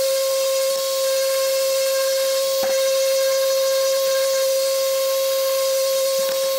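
Random orbital sander running steadily on wood, a high, even whine over a hiss as the pad works the racket's handle and blade. A brief knock about two and a half seconds in.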